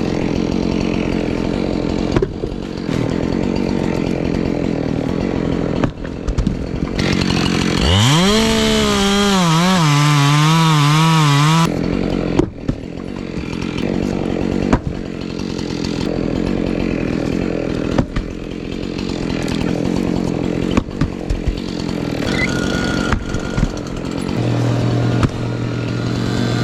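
Two-stroke chainsaw running: the engine revs up sharply about eight seconds in, its pitch wavering at high throttle, then drops off suddenly about four seconds later, with steady running noise either side.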